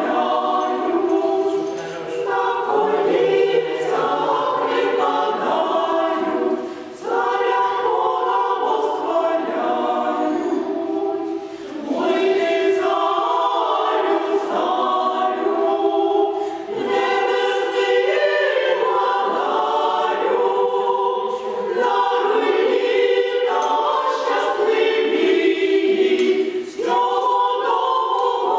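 Women's choir singing Russian Orthodox sacred music a cappella, in phrases with brief pauses for breath every few seconds.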